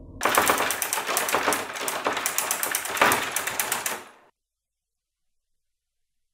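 Rapid, dense clatter of laptop keys and mouse clicks during fast gaming, with a sharper click about three seconds in. It cuts off abruptly into dead silence a little over four seconds in.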